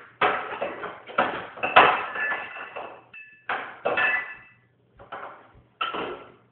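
Kitchen clatter of dishes and utensils being handled at a counter: a string of sudden clanks and rattles, a few of them with a brief ringing tone.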